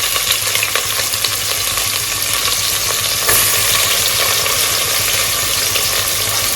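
Onions frying in hot oil in a pan, sizzling steadily, a little louder from about three seconds in.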